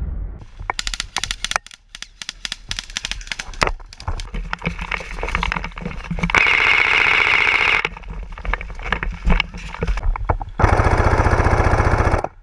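Airsoft M4-style rifles firing. There are scattered single shots and clicks, then a full-auto burst of about a second and a half with a steady high whine through it, and a second rapid full-auto burst of nearly two seconds near the end.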